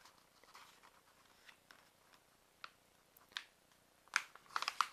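A sheet of paper being folded into a triangle and creased flat by hand. Scattered faint rustles and ticks, with a quick cluster of crisp crackles about four seconds in.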